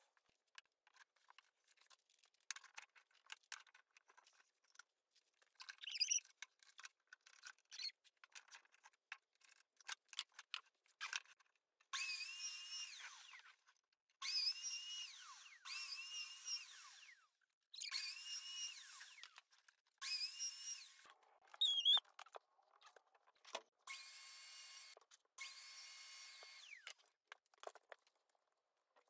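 Light scattered knocks and clicks of wood being handled, then a biscuit joiner run about seven times in bursts of a second or so as it cuts slots along a curved panel edge. Each burst is a steady whine that winds down in pitch as the motor is switched off.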